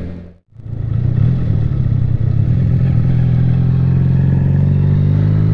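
Motorcycle engine running steadily at road speed, with wind noise, its pitch creeping up slightly over the last few seconds. The sound cuts out briefly about half a second in, then returns at the same level.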